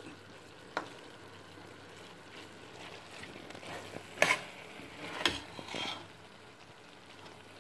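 Minced chicken sizzling faintly in a stainless steel pan as the last of its water cooks off, stirred with a spatula. A few sharp clicks and scrapes of the spatula against the pan stand out over the steady hiss.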